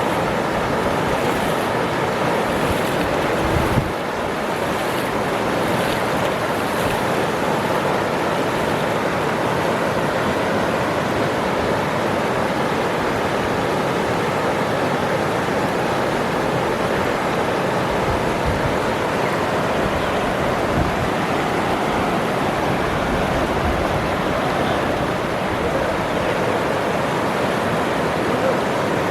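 Waterfall: a steady, even rush of falling water, with a brief bump about four seconds in.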